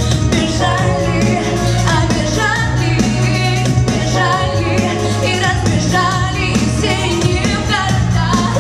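A woman singing a pop song into a microphone over a loud backing track with a heavy, steady bass.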